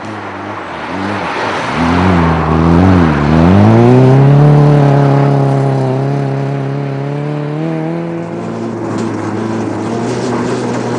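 A rally car's engine revs rise and fall several times as the car comes through the corner. About three and a half seconds in it climbs to high revs and holds them steady as the car accelerates past and away. Near the end the engine note gives way to a rougher, noisier sound.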